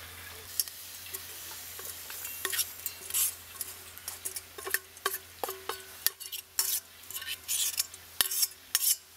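A metal spoon scraping soy-boiled burdock root strips out of a small metal saucepan onto a metal plate: repeated scrapes and clinks of metal on metal, some leaving a short ringing note. It starts with a low steady hiss, and the clinks begin after about two seconds.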